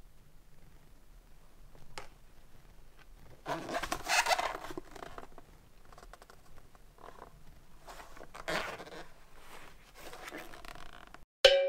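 Footwell carpet and plastic trim panel being pulled loose and handled, with rasping scrapes and rustles and a few clicks. The scraping is loudest about four seconds in and again around eight and a half seconds. A short bell-like ding sounds near the end.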